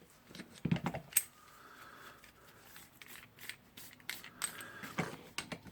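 Scattered light metal clicks and clinks, with a short ringing clink about a second in, as a bearing-removal tool is handled and fitted onto the ball bearing of a rotary hammer's armature.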